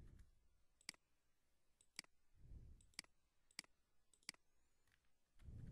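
About five faint, sharp clicks of a computer mouse, roughly a second apart, as text is selected and the cursor placed. There are also a few soft low sounds at the start, about two and a half seconds in, and near the end.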